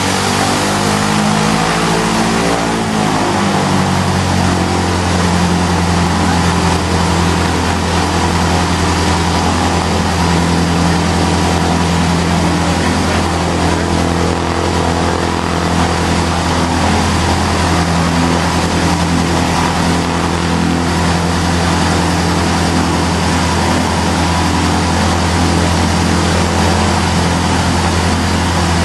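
Piston engine and propeller of a newly built Van's RV kit aircraft running on the ground during its first engine runs. The revs drop about two to three seconds in, then the engine runs steadily.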